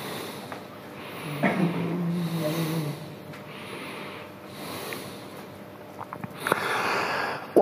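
Breathing close to a microphone in a pause of Quran recitation, with a low voice held for about a second and a half soon after the start. Near the end comes a drawn breath lasting about a second, taken just before the chanting resumes.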